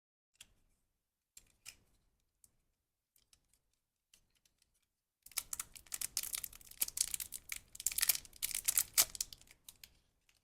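Packaging being unboxed by hand: a few scattered light clicks and taps, then, about five seconds in, several seconds of dense crinkling and tearing of wrapping.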